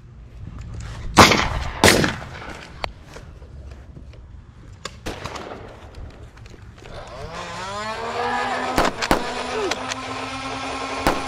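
Two loud sharp shots from a Nerf blaster about a second in. From about seven seconds a motorised flywheel Nerf blaster spins up with a rising whine into a steady whir, over which several darts fire as sharp clicks.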